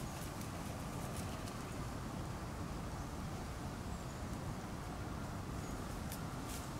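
A shiba inu puppy's paws padding and scuffing through dry grass and fallen leaves: faint scattered rustles, a few more near the end, over a steady low outdoor rumble.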